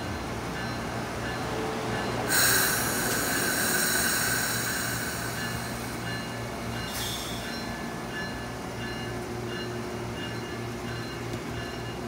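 Amtrak Amfleet passenger coaches rolling slowly along the track over a steady low hum. About two seconds in, a high-pitched metallic squeal starts from the running gear, the loudest part, and dies away after about five seconds.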